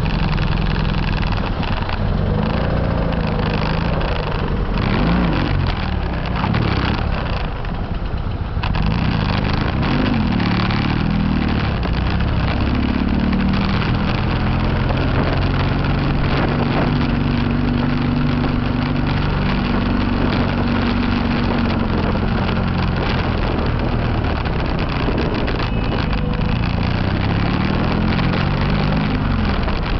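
Motorcycle engine running as it is ridden, its pitch rising and falling again and again as it speeds up and slows down, over a constant rushing noise.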